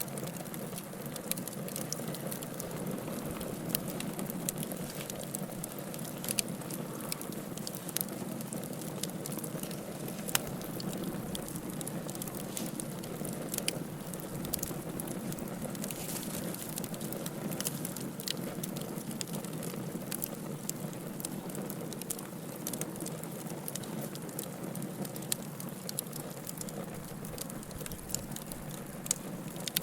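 Campfire burning, a steady low hiss of flames with frequent sharp crackles and pops from the burning wood.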